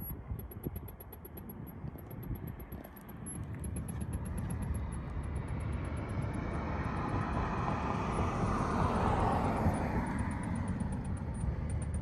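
Pink noise test track playing through the truck's speakers, a steady hiss that grows louder and fuller in the middle about seven to ten seconds in, while the Kicker Key amplifier's microphone measures the cabin for its automatic tuning.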